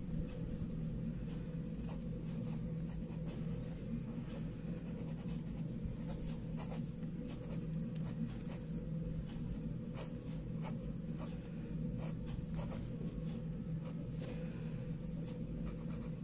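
Ballpoint pen writing and drawing on paper: a string of short scratching strokes at irregular intervals, over a steady low hum.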